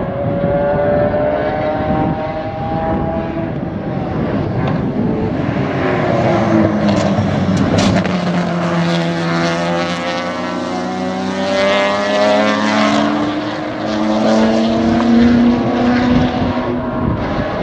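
Sports sedan race cars at racing speed, engines revving up and down as they brake and accelerate through the corners. The pitch drops sharply as one car passes close about eight seconds in, then climbs again as the cars accelerate away.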